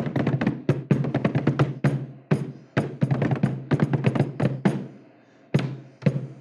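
Improvised hand percussion: two people slapping and tapping a tabletop in a quick rhythm. The rhythm breaks off briefly a little under five seconds in, then picks up again.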